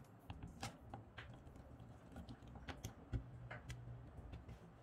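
Faint, scattered light clicks and ticks of a small precision screwdriver and tiny screws being handled while the phone's frame screws are taken out.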